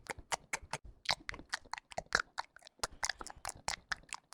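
Computer keyboard keys clicking in quick, uneven typing, about eight to ten keystrokes a second.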